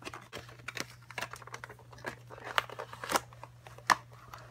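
Clear plastic box sleeve crinkling and crackling as a boxed doll is slid out of it, in irregular sharp crackles, the loudest about four seconds in.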